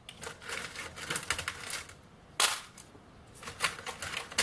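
Small loose die grinder burrs clicking and rattling as they are handled in their box, in irregular clusters, with a sharper knock about two and a half seconds in.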